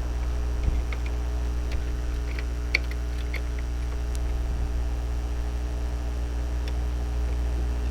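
Scattered light clicks and taps of plastic printer parts being handled and fitted, over a steady low hum.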